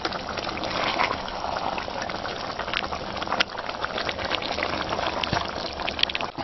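A pot of thick soup with meat simmering on the heat: steady bubbling with many small pops.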